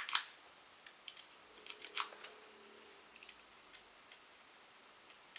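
Small scissors snipping small cuts into adhesive vinyl design foil: a few scattered sharp clicks, the loudest just at the start and a small cluster about two seconds in.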